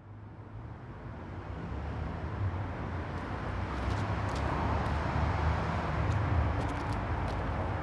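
Steady low rumble of background road traffic, fading in from silence over the first couple of seconds.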